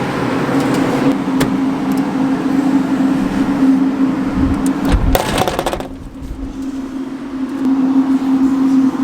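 Grain bin machinery running with a steady hum and a rushing noise over it, while a truck of corn is unloaded into the bins. A few knocks and a low rumble come about five seconds in, and the rushing noise drops away about a second later while the hum goes on.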